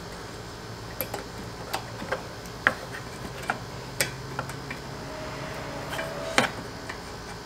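Long-nose pliers clicking and tapping against metal and plastic parts at the car's front end: about ten sharp, irregular clicks over a steady low hum.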